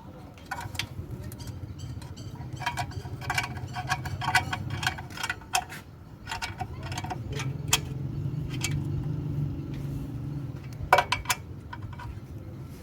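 Irregular metallic clicks and clinks of hand tools working on the bolts of a car's transmission oil pan, over a steady low hum.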